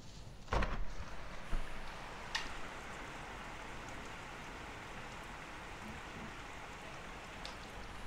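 Heavy rain pouring down steadily, beginning just after a knock about half a second in. A couple of sharp taps follow in the next two seconds.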